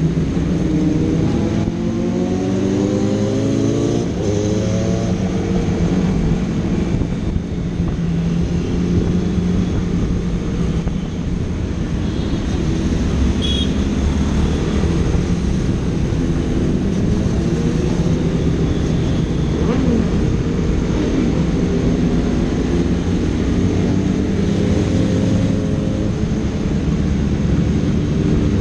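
Sport motorcycle engine accelerating, its pitch climbing through the first few seconds, then running on steadily with smaller rises and falls in revs.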